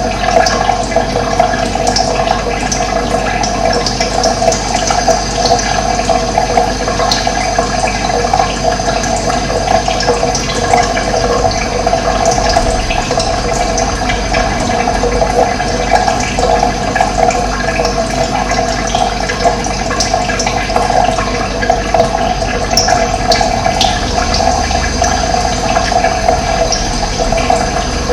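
Running water, a steady rushing flow, with a few faint, brief bird chirps above it.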